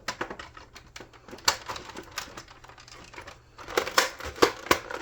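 Plastic parts of a Nerf Rival Hypnos blaster clicking and knocking as they are handled. The clicks are scattered at first and come thicker and louder in the last second and a half.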